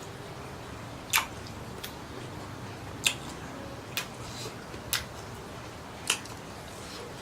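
Someone eating shrimp and squid: sharp, crunchy chewing and mouth clicks come about once a second, five loud ones with fainter ones between.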